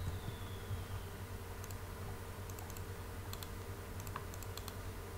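Scattered faint clicks of a computer keyboard and mouse over a steady low hum.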